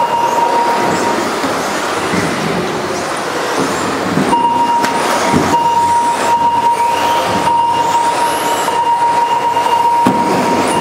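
Several radio-controlled racing cars running laps on a carpet track, their motors whining up and down as they accelerate and brake. A steady high tone holds from about four seconds in.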